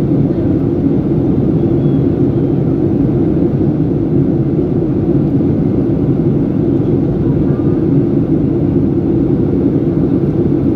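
Steady low roar inside the passenger cabin of a Boeing 737-800 in flight, from its jet engines and the air rushing past the fuselage.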